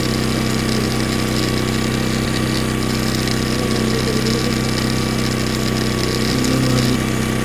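Small motor of a homemade miniature paddy thresher running with a steady hum while rice stalks are fed into its hopper, with a higher rasping hiss of the grain being stripped that drops away shortly before the end.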